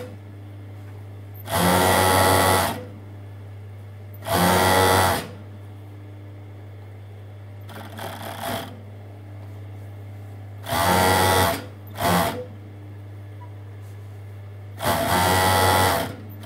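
Industrial four-thread overlocker (MO-6714S) stitching a knit hem in about five short bursts of roughly a second each. Its motor keeps up a steady low hum between the bursts.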